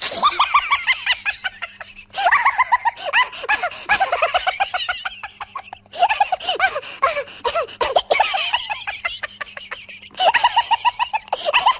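Gray shorthair cat giving rapid, high-pitched, laughter-like chattering calls with its mouth open, in bursts of a couple of seconds separated by short pauses.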